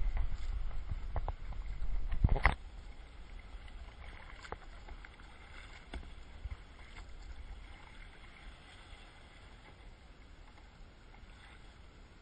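Kayak paddling on open sea: paddle strokes and water sloshing against the plastic hull. A loud, low rumble over the first two and a half seconds, with a sharp splash at its end, gives way to quieter, steady water noise.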